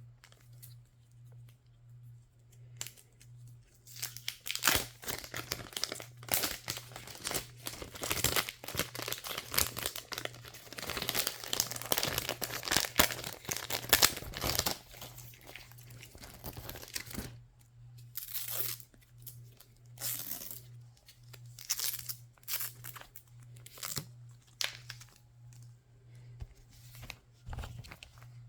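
Packaging being torn open and crinkled: dense rustling and tearing from about four seconds in to about seventeen seconds, then shorter separate handfuls of crinkling. A steady low hum runs underneath.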